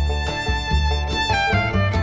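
Background instrumental music: a fiddle tune over a steady, evenly repeating bass line.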